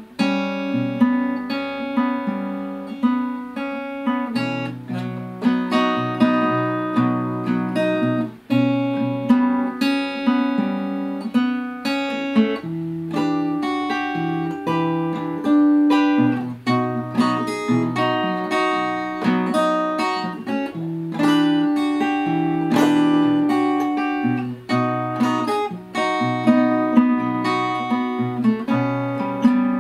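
Solo acoustic guitar playing an instrumental passage of repeated plucked and strummed chords, with no voice.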